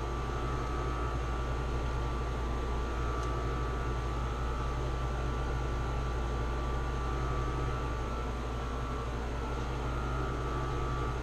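Steady hum and whir of a room air conditioner running, with a low drone and a faint constant tone.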